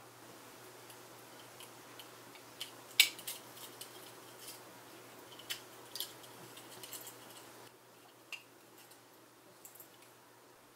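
Light plastic clicks and handling noise as a small white plastic enclosure is fitted around a circuit board and its wires: a few scattered sharp ticks, the clearest about three seconds in and a cluster around five to seven seconds.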